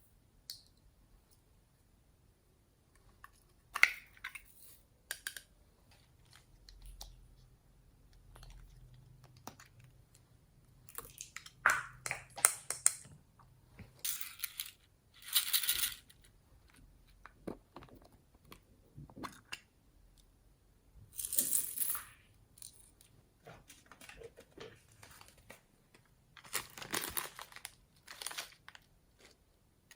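Slime being squeezed and stretched by hand: scattered sticky crackles and pops in short bursts, with quiet gaps between.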